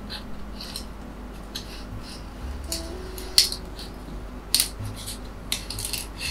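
Metal scraper blade scraping across a 3D printer's build plate in a series of short strokes, clearing leftover filament, the sharpest scrapes a little past the middle.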